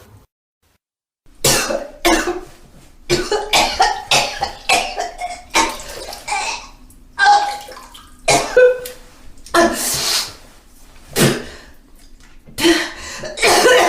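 A person vomiting: a rapid run of wet retches, gags and heaves with strained throat sounds and liquid splashing, starting after about a second of silence.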